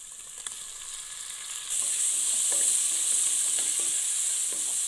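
Chopped tomatoes hitting hot oil and ghee with frying onions in a pressure cooker. The sizzle jumps suddenly louder about a second and a half in, then a spatula scrapes and stirs the mixture.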